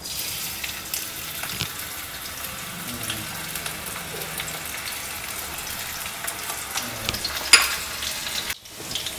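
Chopped green chillies sizzling and crackling in hot oil with cumin seeds in a kadhai, the sizzle starting as they go in, with one sharp pop about seven and a half seconds in.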